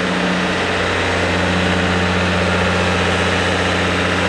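Audi R18 LMP1 race car's V6 turbodiesel engine running at a steady, low, even note, with no revving.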